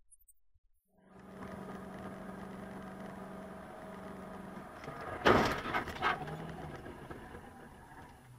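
Steady road and engine noise of a car driving on a highway, with a constant hum, heard from inside the cabin. About five seconds in comes a sudden loud bang, followed by a smaller one about a second later.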